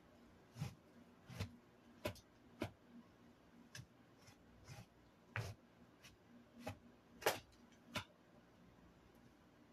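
A series of soft, irregular clicks, roughly one or two a second, stopping about eight seconds in.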